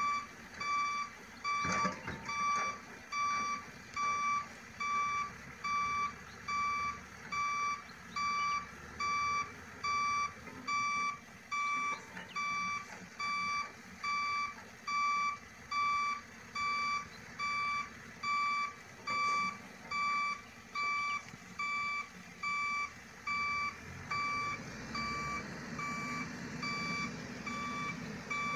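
Vehicle reversing alarm beeping steadily, about one beep a second. A low rumble grows louder near the end.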